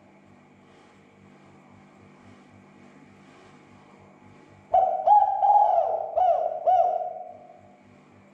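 Spotted dove cooing: after a quiet first half, one phrase of about five low, rounded coos in quick succession, fading out near the end. A faint steady hum runs underneath.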